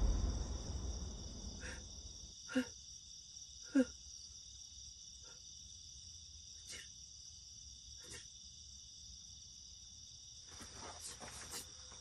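Steady, faint chirring of night insects such as crickets, with a handful of short, faint sounds over it, the two clearest about two and a half and four seconds in. A low rumble fades out in the first second or so.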